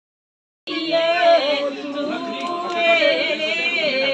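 A moment of silence, then about a second in a group of voices starts singing together: a slow, drawn-out song with a wavering melody.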